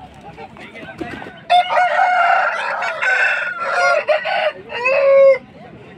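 A gamecock crows once, one long crow starting about a second and a half in and lasting about four seconds, ending on a drawn-out lower note.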